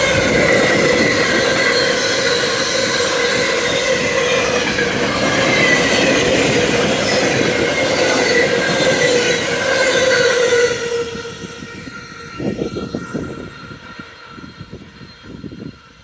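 Freight train wagons, tank cars and loaded log wagons, rolling past close by with a dense rumble and a steady high whine over it. About ten seconds in the last wagons go by and the noise drops off sharply, then fades with a few low thumps.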